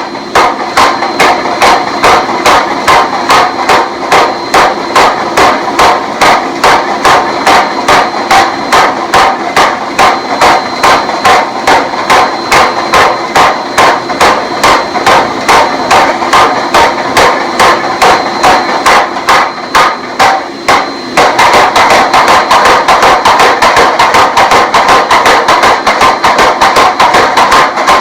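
Steady hammer blows forging a hot blade of 4142 chromoly steel, about three strikes a second. About three-quarters of the way through, the blows turn quicker and denser, almost running together.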